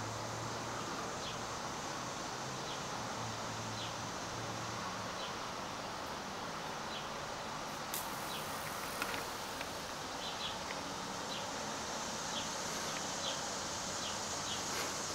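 Insect chirping outdoors: short high chirps repeating roughly every half second to second over a steady hiss, with a few sharp clicks around eight and nine seconds in.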